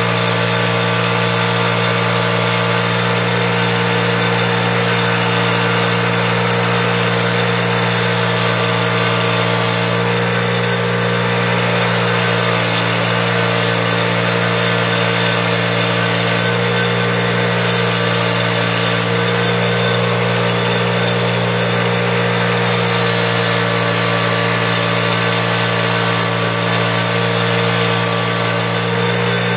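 Bench grinder running steadily with an engine valve held against its wire wheel to scour off carbon deposits: a constant motor hum under an even wire-brushing hiss.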